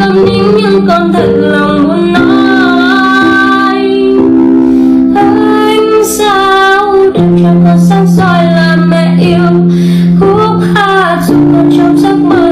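Background song: a high female voice singing a melody over sustained chords that change every couple of seconds.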